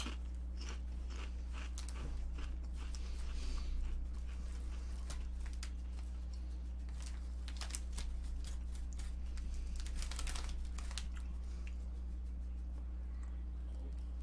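Someone crunching and chewing a Ruffles ridged potato chip, with short crackly crunches in clusters, over a steady low electrical hum.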